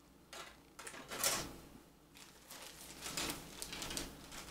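Clear plastic parts bag crinkling and rustling as a plastic model-kit sprue is handled and drawn out of it, in a run of irregular rustles, the loudest about a second in.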